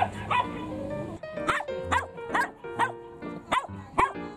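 A dog barking in a quick run of short, high-pitched barks, over background music with held tones.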